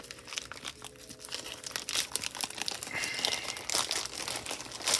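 Album packaging crinkling and crackling as it is pulled at and ripped open by hand, with irregular sharp rustles and tearing.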